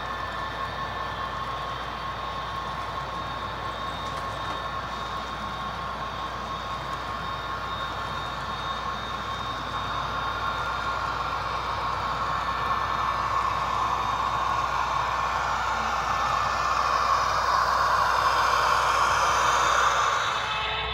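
HO-scale model train running: covered hopper cars rolling along the track with a steady rolling noise and whine. The sound grows louder over the last ten seconds as a model diesel locomotive draws near on the nearer track.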